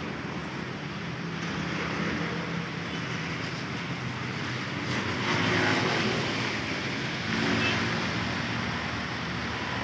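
Bus engine idling with a steady low hum under constant street noise, swelling louder about five seconds in and again near eight seconds.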